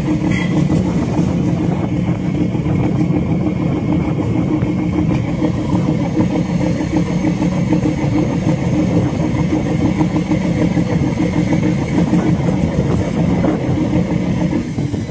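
Fishing boat's engine running steadily under way, a constant low drone with a rough, noisy edge.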